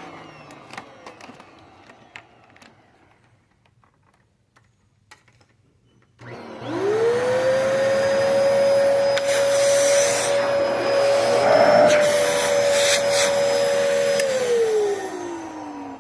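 Vacuum cleaner switched on about six seconds in: its motor spins up quickly to a steady whine and runs for about eight seconds, then is switched off and winds down with a falling pitch near the end. Before it starts, a few light clicks and the tail end of an earlier wind-down.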